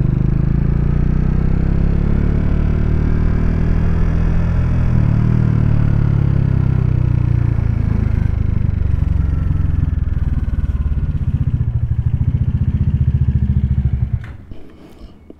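Motorcycle engine running as the bike rolls slowly forward, its pitch easing down as it slows. The sound drops sharply about fourteen seconds in as the bike comes to a stop.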